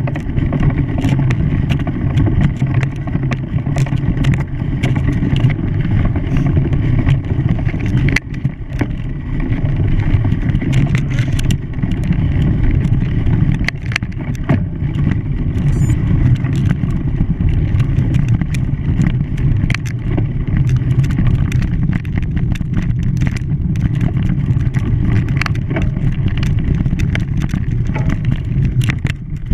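An engine running steadily, heard from on board, with a constant low rumble and frequent small clicks and rattles over it.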